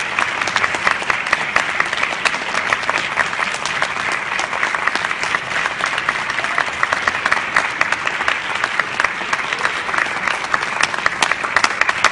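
Audience applauding at the end of a lecture: many hands clapping together, dense and steady at an even level throughout.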